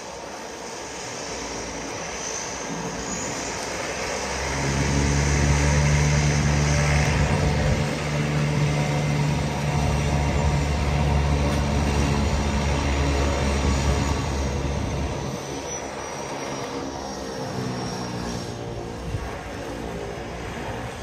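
Twin-engine turboprop seaplane taking off: a steady propeller and engine drone swells about four seconds in, holds loud for about ten seconds, then eases to a lower drone as it moves away.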